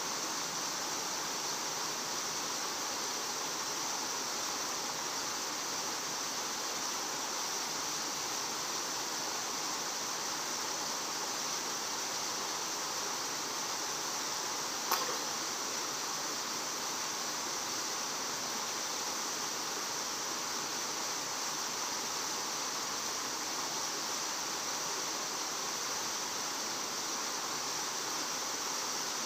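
Steady outdoor background hiss with no rise or fall, brightest in the upper range, and one short sharp click about halfway through.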